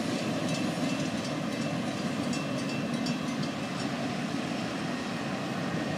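Double-stack intermodal freight train cars rolling away down the track: a steady noise of steel wheels on rail.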